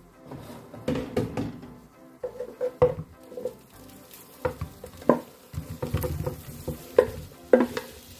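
Kitchen utensil scraping and clinking against the air fryer basket and a serving dish as cooked chicken, potatoes and peppers are moved across: a run of irregular knocks and scrapes.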